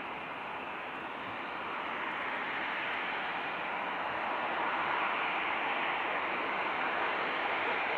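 Jet engines of an Airbus A320-216, a steady rushing noise that grows louder over a few seconds and then holds.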